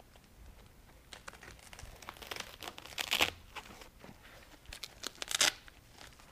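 Fabric of a Honl Traveller8 collapsible softbox rustling and its hook-and-loop fastening crackling as it is worked onto the head of a flash by hand, in two bursts of crinkling, the loudest about three seconds in and another about five seconds in.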